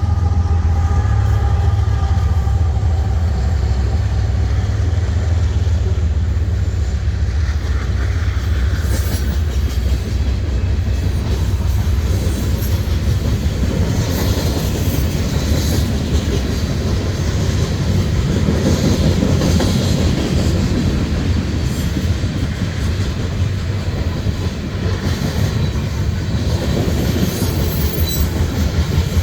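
Train rolling past, a loud steady rumble of railcars on the track.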